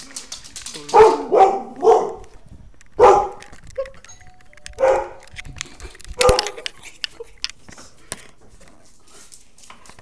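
A dog barking in short, loud bursts: three barks in quick succession about a second in, then single barks spread out over the next few seconds, and then a quiet spell.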